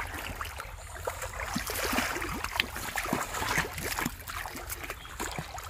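Shallow muddy paddy water splashing and sloshing as hands grope through it for fish, with many small, scattered splashes and drips.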